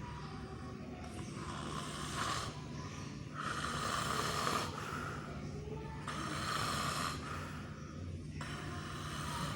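Sleeping baby snoring: four noisy breaths about two and a half seconds apart, over a steady low hum. The snoring is put down to the baby lying on its side the wrong way.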